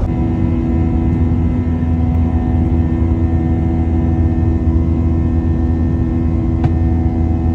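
Airliner cabin noise in flight: the steady low drone of the jet engines, with several constant hum tones above it and a single faint click near the end.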